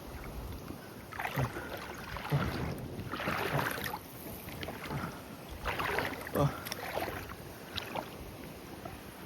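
Wind gusting over the microphone, rising and falling in several swells.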